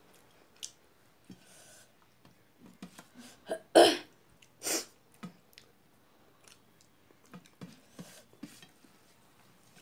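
Close-up eating sounds: soft lip smacks and mouth clicks of a person chewing a handful of rice, with two short, sharp throat noises from the eater about four and five seconds in, the first the loudest.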